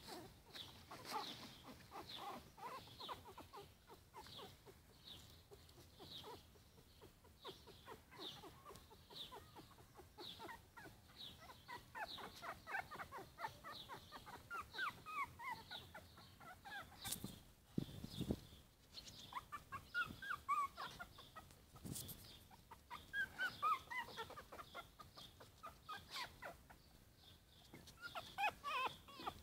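Four-week-old Yorkshire Terrier puppies squeaking and whimpering in short, high, falling cries that come in clusters. A separate high chirp repeats about twice a second throughout.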